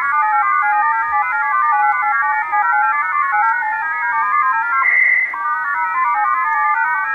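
Unidentified shortwave polytone station received in upper sideband on a Yaesu FRG-100 receiver, possibly an XPA variant. It plays a fast, continuous run of stepping beeps at several pitches at once, with one higher tone held for about half a second about five seconds in.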